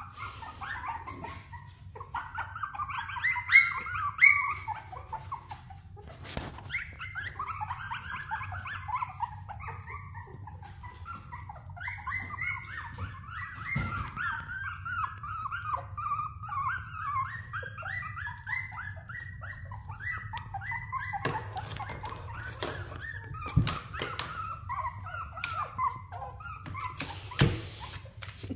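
Young puppies whining and yelping, a near-continuous stream of short high-pitched cries, with a few louder yelps about four seconds in and again near the end.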